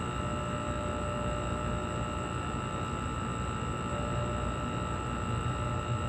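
1960s–70s GE Thinline window air conditioner running, its compressor humming steadily, heard close against the side of the cabinet. The owner says the unit is working perfectly.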